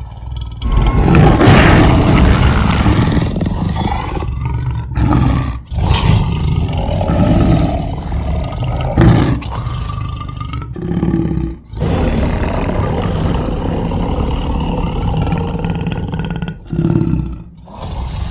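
A series of long, loud big-cat roars and growls, a sound-designed creature voice layered from lion, tiger and leopard recordings, with a few short breaks between calls.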